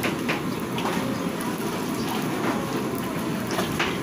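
Hot oil in a black wok sizzling and crackling steadily as puffed snack crackers deep-fry, with many small scattered pops.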